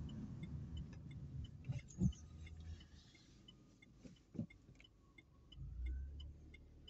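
Car cabin with the engine running low at a stop, the turn-signal indicator ticking steadily about twice a second. Two short knocks come about 2 and 4.5 seconds in, and the engine note rises near the end as the car pulls away.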